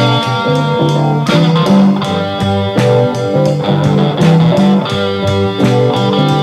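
Instrumental rock tune: guitar playing over a moving bass line, with steady drum hits.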